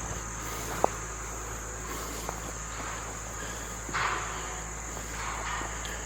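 Insects trilling steadily in one unbroken high tone. There is a sharp click a little under a second in and a short brushy rustle about four seconds in.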